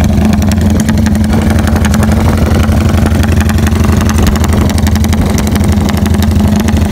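Motorcycle engine running loud and steady through an aftermarket CJDW hexagonal-can muffler, a rapid, even string of exhaust pulses as the bike rolls slowly along.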